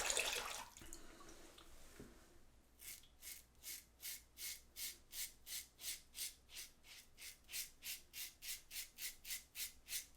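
1940s Gillette Super Speed safety razor with a Gillette Super Blue blade scraping through lathered stubble. It starts about three seconds in with short, even strokes at roughly two to three a second.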